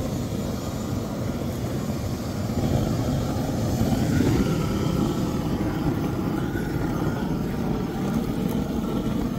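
Hand-held gas torch burning with a steady rushing flame, played over earth-filled polypropylene sacks to burn off the sack fabric.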